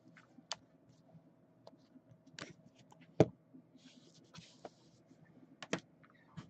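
Faint, scattered light clicks and taps with a little soft rustling, from trading cards and their plastic sleeves or holders being handled. The sharpest tap comes about three seconds in.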